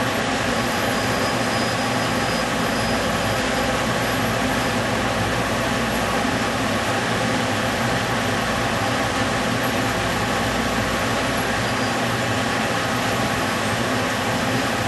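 Reflow soldering oven running: a steady, unbroken whir with a low hum underneath.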